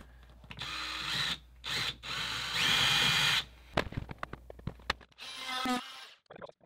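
Power drill boring a hole overhead into an RV's ceiling panel, run in several short bursts with a steady motor whine. The longest and loudest burst runs from about two to three and a half seconds in; a shorter one follows a little after five seconds, with a few clicks between them.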